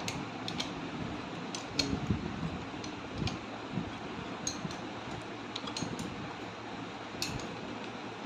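Light metallic clicks of a spanner on the cylinder-head nuts of a TVS motorcycle engine as they are snugged down a little at a time in turn, a few clicks every second or so, over a steady background hiss.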